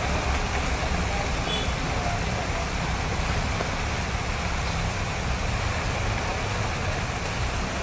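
Heavy rain pouring onto a water-covered street, a steady dense hiss with a low rumble underneath.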